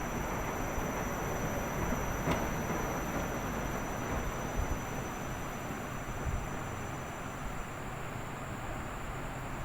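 Washing machine running: a steady noise with low thumps every second or two, a brief sharp click a little over two seconds in, and a faint high whine throughout.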